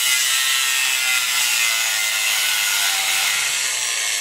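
Angle grinder with a thin zip-cut wheel cutting into a stick weld on a steel pipe: a steady high hiss of the wheel in the steel over a faint motor whine. The weld is being scored down to the root to cut out lack of fusion for a repair.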